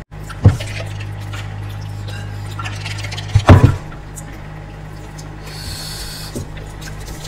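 Close-miked noodle eating: noodles slurped in two loud bursts, about half a second in and about three and a half seconds in, with quieter wet mouth sounds between.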